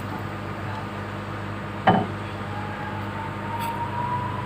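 Komatsu PC200-7 excavator running with a steady low engine hum, and one sharp metallic clink about two seconds in, as steel parts meet while the bucket is lined up with the arm for its pins. A faint whine rises slowly in pitch in the second half.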